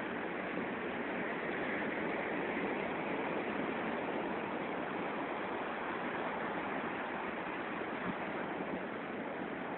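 Steady rushing of surf along a sandy beach, an even hiss with no distinct wave-by-wave rhythm.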